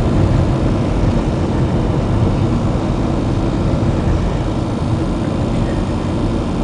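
Car tyres running along highway rumble strips, heard from inside the cabin: a loud, steady low drone over the road and engine noise.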